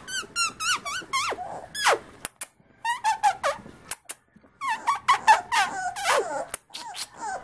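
Beagle puppy whining: short high-pitched squeaky cries in quick runs, with brief pauses between the runs. Some cries slide down in pitch.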